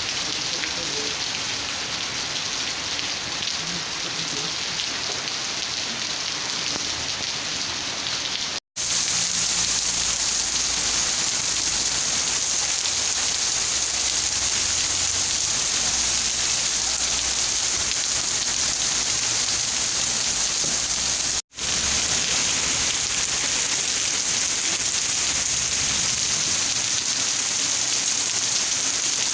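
Steady rain falling, an even, dense hiss. The sound cuts out for a split second twice, about a third and about two-thirds of the way through, and comes back a little louder and hissier after the first gap.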